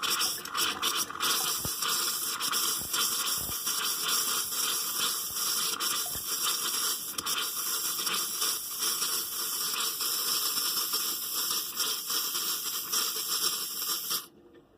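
Compressed air and water spitting out of an open camper faucet as the plumbing lines are blown out, a steady hiss with sputtering spray and small pops. It cuts off suddenly near the end.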